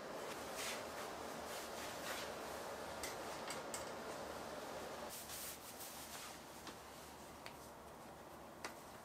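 Faint handling sounds of a metal baking tray and silicone baking cups: soft scrapes, rubs and light clicks as the tray is set down on a wooden table and gloved hands take hold of a cup, with one sharper click near the end. A steady background hum stops about five seconds in.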